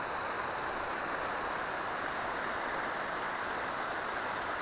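Waterfall on a hill burn, the falling water making a steady, unbroken rushing noise.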